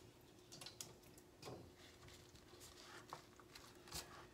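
Faint, soft handling sounds of raw chicken wings being pushed into place in a skillet by gloved hands: a few light squishes and taps, over a faint steady hum.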